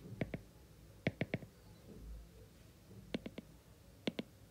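Short, sharp clicks in quick pairs and threes, four groups in all, from an input device being clicked or tapped while a slide is marked up with a pen tool, over faint room tone.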